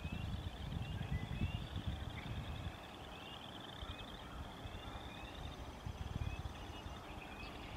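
A chorus of small animal calls: many short rising chirps and a steady running trill, over a low rumble that fades about two and a half seconds in.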